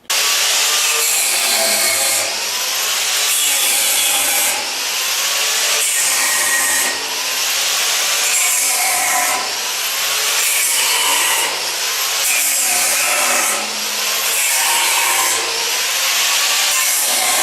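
Harsh, loud cutting noise from a power tool sawing or grinding, swelling and easing about every two seconds.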